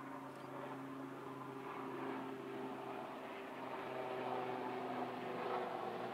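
LNER A4 Pacific steam locomotive 60019 Bittern, running as 4492 Dominion of New Zealand, approaching with its train: a steady hum and rumble that grows slowly louder.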